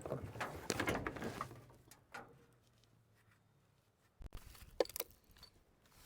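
Scrap being handled: rustling and scraping for the first second or so, then a dull thump about four seconds in and a sharp knock just before five seconds.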